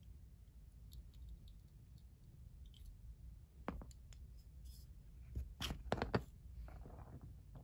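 Small metal parts of a vintage flat petrol lighter clicking and scraping as they are worked apart by hand with a small screwdriver: faint ticks at first, then a cluster of louder clicks between about four and six seconds in.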